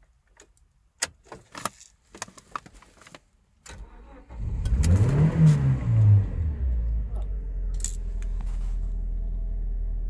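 A few light clicks, then the 2009 Toyota Corolla's 1.8-litre four-cylinder cranks briefly and starts with the accelerator held to the floor, showing it has no clear-flood mode. The revs flare up and back down twice, then it settles into a steady idle.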